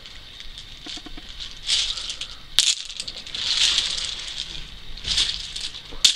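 Hazelnuts in their shells clattering as a kitten scrambles across a deep pile of them. The rattling comes in uneven bursts, with a few sharp clicks of single nuts.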